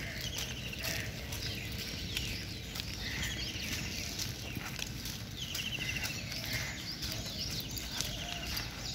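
Birds calling outdoors at dawn, a scatter of short chirps and a few rapid trills, over a low wind rumble on the microphone.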